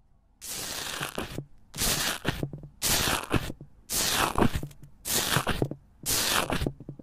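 Foamy blue slime crackling as it is pressed down in a plastic tub, in six bursts about a second apart.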